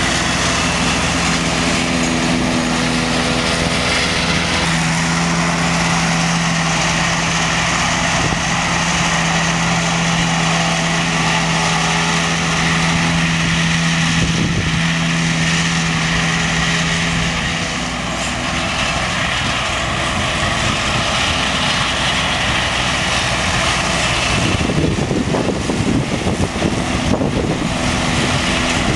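McCormick MC 130 tractor engine running under load while driving a Lely Splendimo 320 M disc mower through standing grass: a steady, loud machine drone mixed with the whir of the spinning mower discs. A held tone in the drone stops about two-thirds in, and the sound turns rougher and more rumbling near the end as the tractor comes close.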